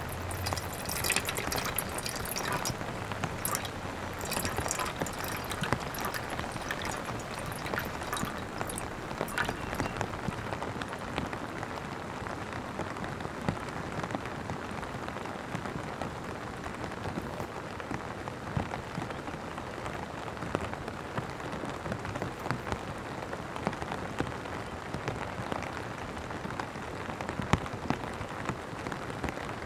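Steady rain falling, with many separate drops ticking close by. The drop hits are sharper and brighter for roughly the first ten seconds, then settle into an even patter.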